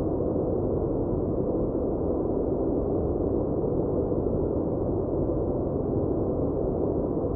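Steady background noise track, a deep, muffled hiss with its weight in the low and middle range and no highs, unchanging throughout.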